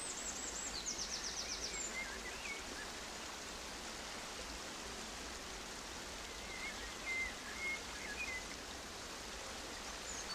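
Steady outdoor ambient hiss with a few short bird chirps, twice, and a quick high trill in the first couple of seconds.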